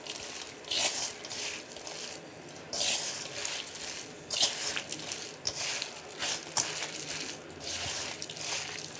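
A hand mixing syrup-coated boondi in a steel bowl: a rustling scrape every half second to a second as the fingers push the pearls around the bowl.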